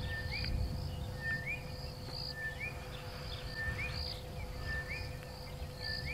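A bird calling over and over, about once a second, each call a short flat note that slides upward. Under it runs a low steady rumble with a faint hum.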